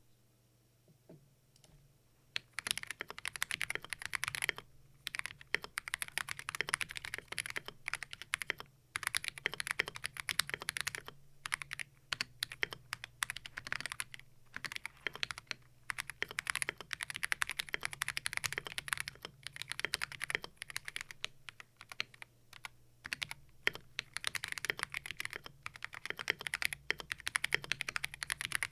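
Typing on a Keydous NJ68 Max mechanical keyboard with unlubed Akko CS Ocean Blue switches. The keyboard's PCB is tape-modded, its case is lined with neoprene, and its stabilizers are modded, including a Holee mod on the spacebar. Quick, continuous keystrokes start about two and a half seconds in, broken by short pauses.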